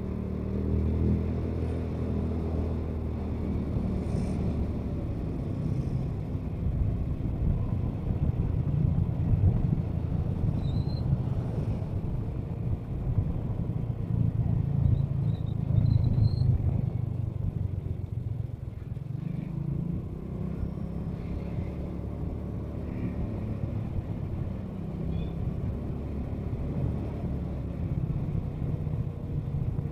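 Motorcycle engine running under way, its pitch rising and falling with the throttle, over steady road and wind rumble.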